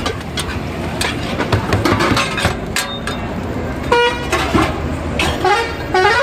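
Metal spatula scraping and tapping on a flat dosa griddle as masala dosas are folded and cut, over busy street traffic noise. A vehicle horn gives a short honk about four seconds in.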